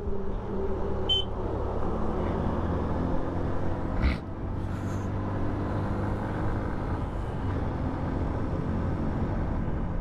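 Motorcycle engine running while riding at steady speed, heard with road and wind rumble, the engine note shifting a little. There is a short high chirp about a second in and a brief knock about four seconds in.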